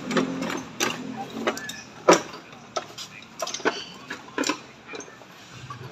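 Irregular metallic clicks and clinks of hand tools working on metal, the sharpest knock about two seconds in, as a new steering rack is fitted.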